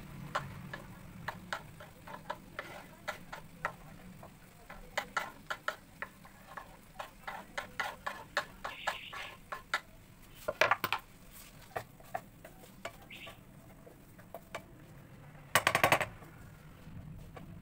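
A steel spoon scraping and tapping chopped carrots and capsicum off a wooden chopping board into a frying pan, a long string of separate sharp clicks and knocks. Near the end a short, loud burst of rapid clattering as a spatula stirs the vegetables in the pan.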